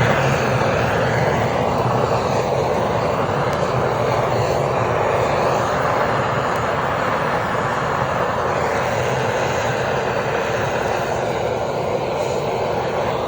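Loud, steady rushing roar of a ceiling exhaust fan drawing wood smoke out of a glamping tent, drowning out the crackle of the fire.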